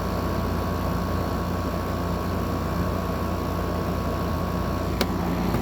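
Window air conditioner running: a steady compressor and fan hum with a low drone and a faint steady whine. There is a single sharp click about five seconds in.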